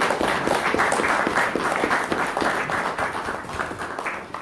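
Applause from a small audience, many hands clapping at once, thinning out near the end.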